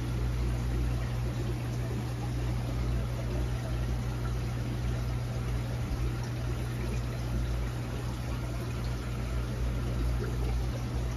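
Saltwater aquarium's water circulation: a steady sound of flowing, trickling water over a low, even pump hum.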